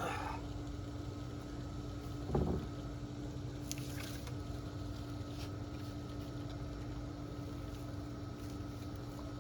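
Steady low mechanical hum with a constant tone, and one dull thump about two and a half seconds in.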